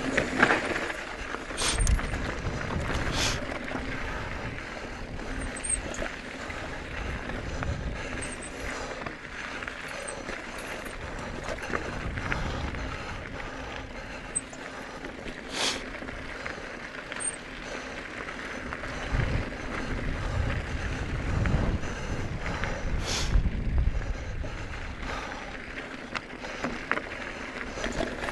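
Bicycle ridden along a dirt trail: steady tyre and drivetrain noise, with a few sharp clicks and knocks from the bike and uneven low rumbles.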